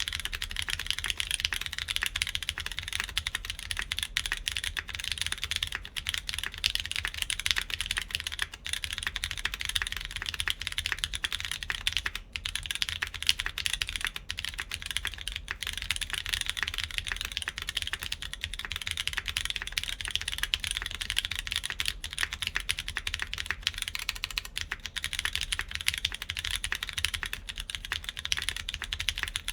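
Continuous fast typing on a mechanical keyboard with lubed Cherry MX Brown tactile switches in an aluminum plate, fitted with SWG Beige keycaps and lubed clip-in Cherry stabilizers.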